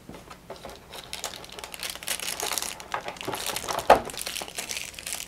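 Plastic packaging crinkling and rustling as hands work through an open radio box's contents, with one sharp tap just before four seconds in.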